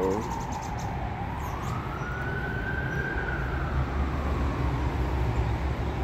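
Emergency-vehicle siren on a slow wail: its pitch dips about a second in, climbs over the next two seconds, then slides slowly down again.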